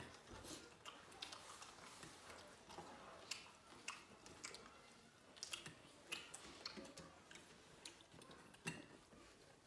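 Faint eating sounds from people eating rice with their hands from steel plates: chewing and soft mouth clicks, with irregular light ticks and taps scattered throughout.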